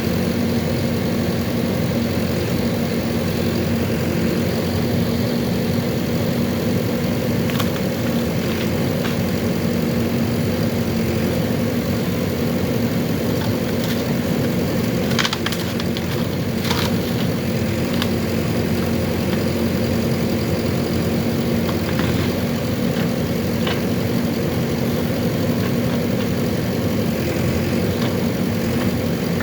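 JCB 3DX backhoe loader's diesel engine running steadily, with a few short sharp knocks scattered through, most of them around the middle.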